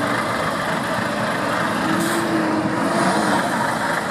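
Volvo FH 500 tractor unit's 13-litre straight-six diesel running steadily as the unit turns slowly at low speed.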